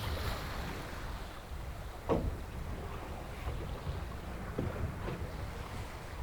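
Wind buffeting the microphone with a low rumble, and water lapping against the hull of a small fishing boat, with a sharper knock about two seconds in and a lighter one a couple of seconds later.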